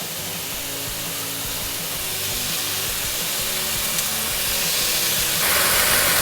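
Beef slices, onions and ginger sizzling in a hot oiled pan, a steady hiss that grows louder and jumps up near the end.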